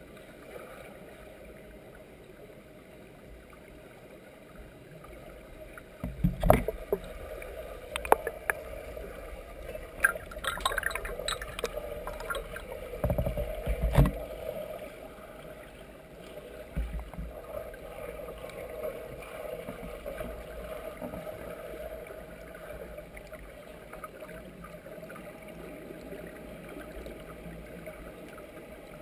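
Muffled underwater pool sound through a submerged camera: a steady hum with a cluster of dull thumps and splashes from a swimmer in the first half, the loudest about halfway in, as she turns at the wall.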